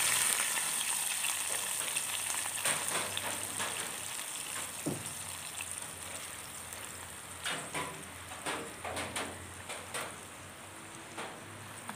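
Hot coconut-oil tempering of mustard seeds, shallots, garlic and dried chillies poured into thick tamarind in a clay pot, sizzling. The sizzle is loud at first and dies away over several seconds, leaving scattered pops and crackles.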